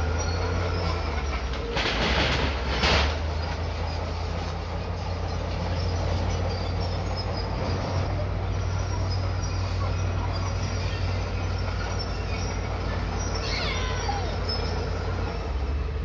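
Bulldozer's diesel engine running with a steady low hum. A short rush of noise comes about two seconds in, and near the end a metallic squeal falls steeply in pitch.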